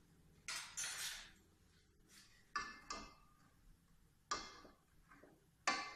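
Metal spoon scraping, then clinking against an aluminium cooking pot of milk about five times, each clink ringing briefly; the last, near the end, is the loudest.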